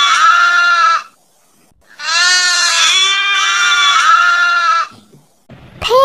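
Goat bleating: two long bleats, the first ending about a second in and the second, longer one running from about two seconds to nearly five.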